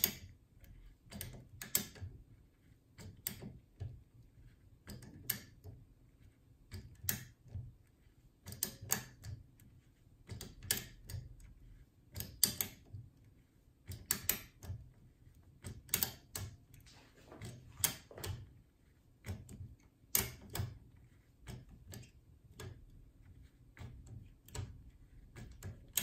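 Irregular sharp metallic clicks, about one or two a second and sometimes in quick pairs, as a decoder pick is worked under tension in a JUWEL 3x3 double-bit safe lock: the clicks of the lock's wafers during picking.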